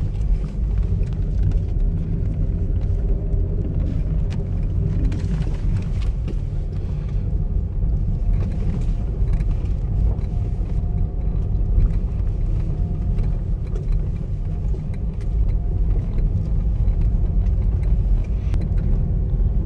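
Car driving slowly over a rough dirt road, heard from inside the cabin: a steady low rumble of tyres, suspension and engine, with scattered light clicks.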